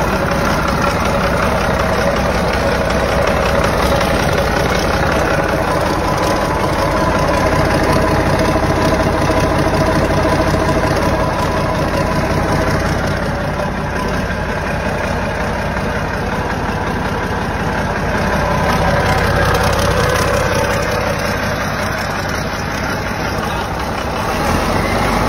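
Large used diesel engine from yellow heavy equipment running steadily on a test stand after being restarted, its note shifting a little partway through.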